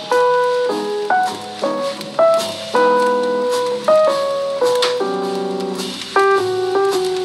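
Background jazz music led by piano, with chords changing every half second or so over light drums.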